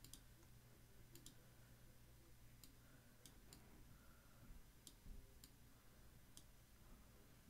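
Near silence with a few faint computer mouse clicks, spaced unevenly, as shapes are selected and dragged on screen.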